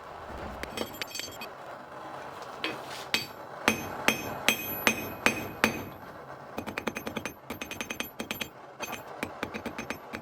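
Hammer striking metal with a bright ring after each blow. About three seconds in come a series of heavy blows roughly half a second apart, then a quicker run of lighter taps, several a second.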